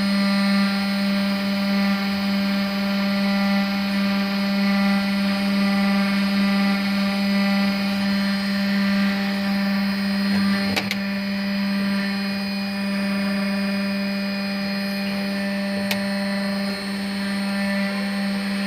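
Desktop CNC milling machine's spindle running steadily with a constant whine while it carves a coin. There are two sharp clicks, about eleven and sixteen seconds in.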